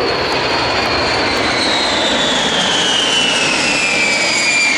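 Loud jet noise from a B-52 bomber's eight engines as it flies past. A high whine holds steady for about a second and a half, then falls in pitch as the aircraft goes by.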